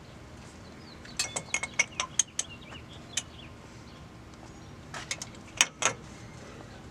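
Light metallic clinks and taps of small steel parts and hand tools at a truck's front wheel hub, as the spindle nut's locking pin is worked into its keyway. A quick run of clinks comes about a second in, and a few louder ones near the end.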